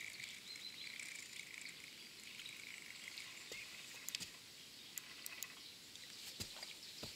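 Faint, steady, high-pitched chirring of insects, with a few light clicks about four to five seconds in and a soft thump near the end.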